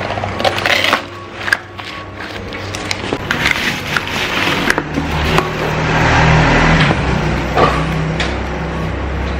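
Cardboard packaging rustling and crinkling as it is opened, with small knocks and clicks as ceramic dishes and plastic pieces are handled, over background music whose low bass grows stronger about halfway through.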